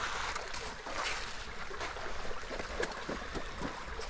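Stream water running steadily, with scattered light knocks and clatter of camp gear being handled and packed away.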